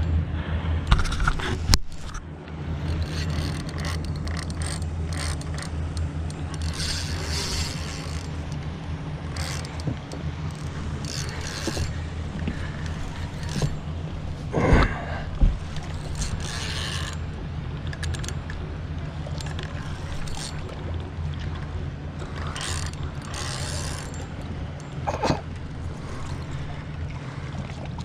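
Penn Battle II spinning reel working against a hooked big redfish, its gears and drag clicking and hissing in short bursts over a steady low motor hum. A few sharp knocks come about a second in, around the middle, and near the end.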